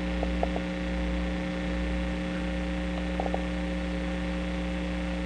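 Steady electrical mains hum with a faint hiss, with a few faint light clicks near the start and again about three seconds in.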